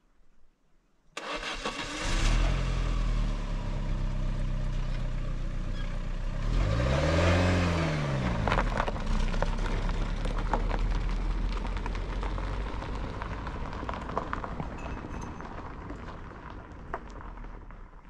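Iran Khodro Samand sedan's engine starting suddenly about a second in, then the car pulling away: the engine note rises and falls once near the middle, and it runs on, slowly fading, with tyres crackling over the stones of a gravel dirt road.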